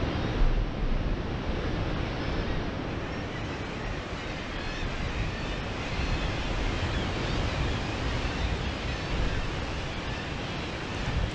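Wind buffeting the microphone over the steady wash of sea surf breaking against rock below.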